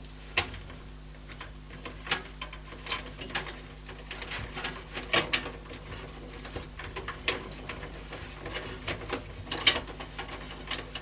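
Irregular small clicks, taps and rattles of front-panel cable leads being handled and tucked against the plastic and metal of a PC case.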